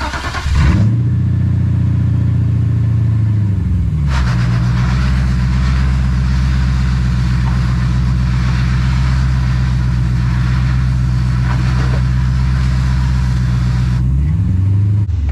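Mercedes 560SEC's 5.6-litre V8 running under way. The revs rise about half a second in, drop about four seconds in, then hold steady, with a brief rise and fall near the end.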